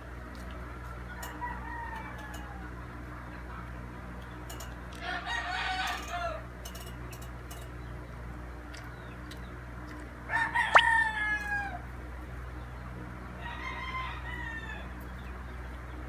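Roosters crowing four times: a faint crow about a second in, a louder one around five seconds, the loudest around ten seconds, and a fainter one near the end. Each crow lasts about a second and a half and slides down in pitch at the end. A steady low hum and a few small clicks run underneath.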